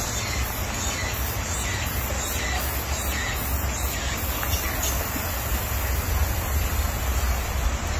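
Steady wind noise on the microphone, a low rumbling hiss, with a few faint short high chirps in the first half.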